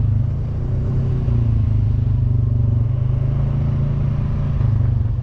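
ATV engine running steadily at riding speed, a low hum that eases off briefly about half a second in.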